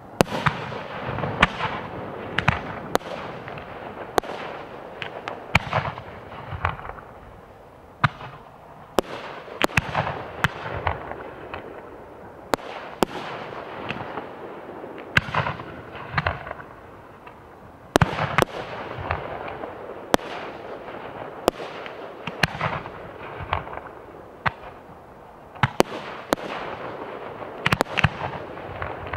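Professional 1.3G aerial firework shells, up to 6 inches, being fired and bursting in a rapid, irregular series of sharp booms, each trailed by a rumbling echo.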